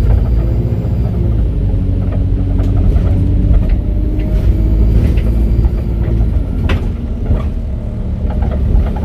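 Alexander Dennis Enviro 400 double-decker bus, converted from hybrid to diesel and fitted with a ZF automatic gearbox, accelerating: a heavy engine rumble with a note that rises steadily for about five seconds. The note drops back about six to seven seconds in, as at a gear change.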